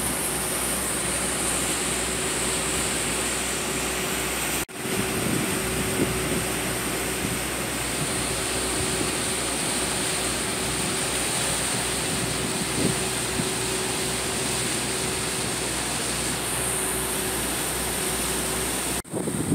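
Steady rushing noise aboard a motor yacht underway, the drone of its engines mixed with its churning wake. The sound breaks off briefly twice, about five seconds in and near the end.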